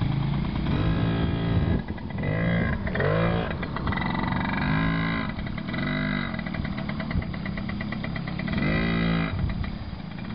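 Small dirt-bike engines, a Honda CRF80 four-stroke and a Suzuki JR50 two-stroke, running and being revved up and eased off again and again, each rev a rise and fall in pitch.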